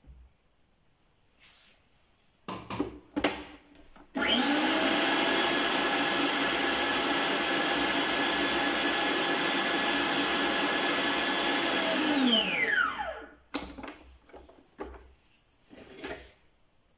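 Arno stand mixer's motor whipping cream with its wire whisk in a steel bowl. It starts abruptly about four seconds in, runs at a steady high-pitched whine for about eight seconds, then winds down with a falling whine. This is the last short burst that brings the cream to the right whipped point. Clicks and knocks come before and after, from the mixer head and whisk being locked and handled.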